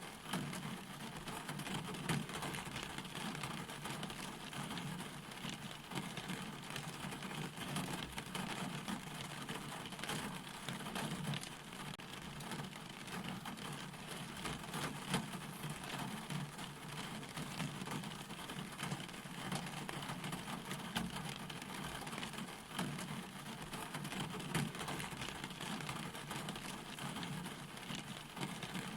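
Steady rainfall, with many drops striking a surface.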